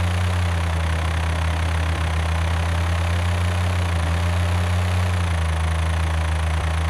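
Engine sound effect of a cartoon work vehicle running steadily at idle: an even, low hum under a hiss.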